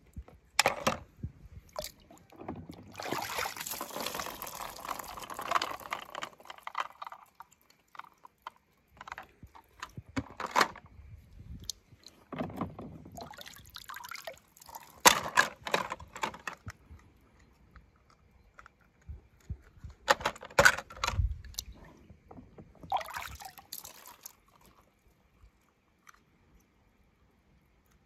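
Water splashing and dripping as small toy cars are dunked by hand into a clear plastic tub of water and lifted out, in several separate bursts with quiet gaps between.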